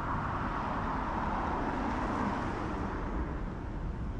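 Road traffic: a vehicle passing, its tyre and engine noise swelling and then fading away.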